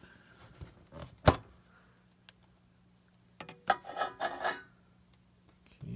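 A metal presentation tin being opened by hand: a sharp click about a second in as the lid comes free, then a stretch of scraping and rubbing as the lid slides off the packaging inside.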